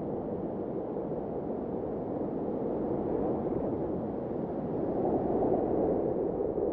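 Steady rushing, wind-like noise with no tone or beat in it, growing a little louder about five seconds in.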